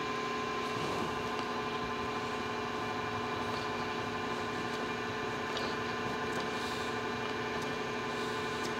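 Steady mechanical hum of machine-shop machinery running, holding a few fixed tones without change.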